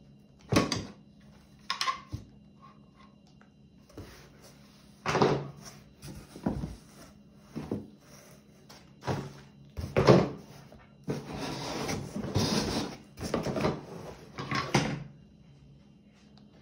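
Irregular handling sounds of hard plastic objects and packaging: separate knocks and clicks, then a denser stretch of rustling and clattering from about two-thirds of the way in.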